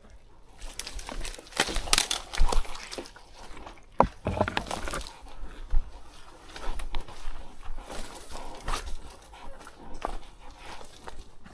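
A person breathing hard and panting from exertion on a difficult hike, with irregular rustling and a sharp knock about four seconds in.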